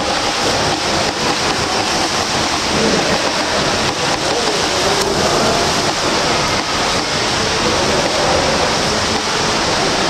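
Continuous splashing and churning of water from a swimmer's front-crawl arm strokes and kicks.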